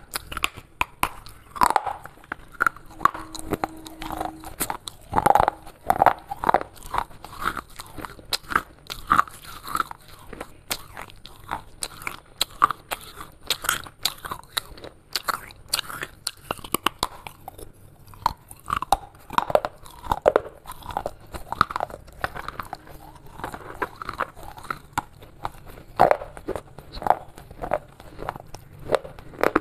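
A person biting off and chewing pieces of broken clay pottery shards: a continuous run of sharp, crackling crunches.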